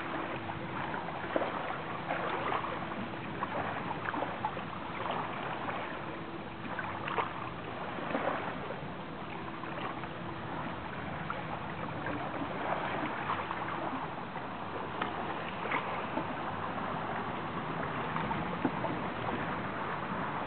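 Hudson River water lapping and splashing at the shore, a continuous wash of small irregular splashes. A faint steady hum comes and goes underneath.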